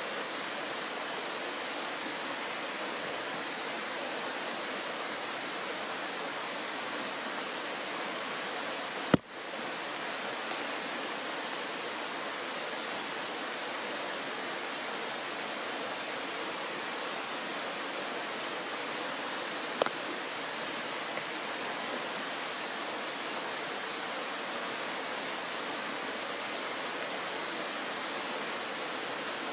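Shallow mountain stream rushing steadily over a stony bed and a small riffle. A short high falling chirp sounds four times, and two sharp clicks cut through, about nine and twenty seconds in.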